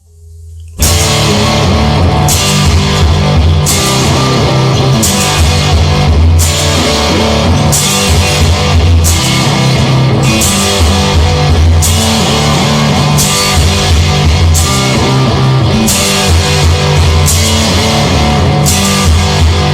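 Rock music with guitar and drum kit, no singing, kicking in loud about a second in after a short low swell, with a bright accent about every one and a half seconds.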